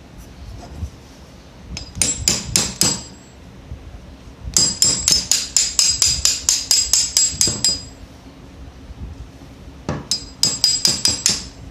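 Small hammer tapping a punch to drive a spring pin out of a blank pistol's frame. Three quick runs of light metallic taps, about five a second, each with a ringing ping; the longest run is in the middle.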